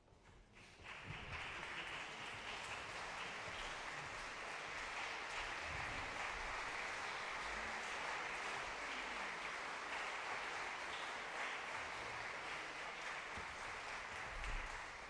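Concert hall audience applauding steadily. The applause starts about a second in and greets the conductor as he walks onto the stage.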